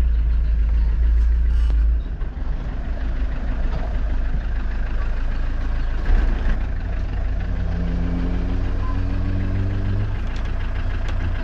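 Land Rover running on the move: a steady low engine and road rumble, with a short jolt about six seconds in and a brief pitched hum layered on top for a couple of seconds near the end.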